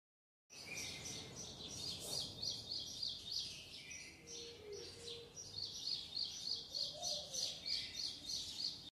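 Birds chirping in quick, repeated high calls, starting after a half-second dropout, with a lower call or two mixed in.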